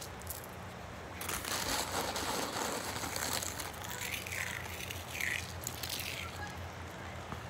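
Thin plastic grocery bag rustling and crinkling as it is handled, over a faint low steady hum.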